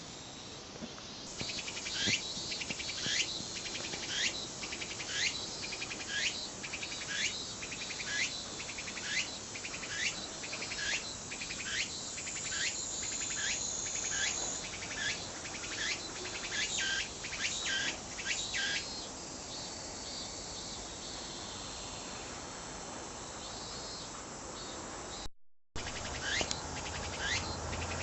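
Tsukutsukuboushi cicada (Meimuna opalifera) singing: a run of repeated high, sweeping calls about once a second that speeds up toward the end, then a steadier buzzing stretch. The sound breaks off briefly about 25 seconds in and the calling starts again.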